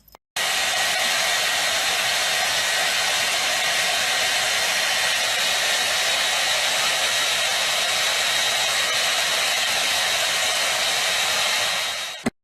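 A steady, even rushing noise with a faint high whine, like a blower motor running, that switches on abruptly just after the start and cuts off abruptly near the end.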